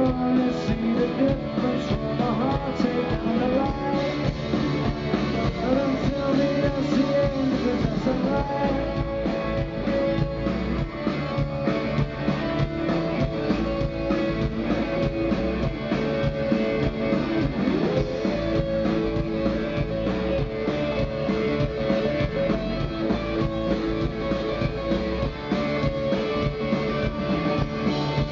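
Indie rock band playing live on electric guitars, bass guitar and drum kit, heard from among the crowd in front of the stage.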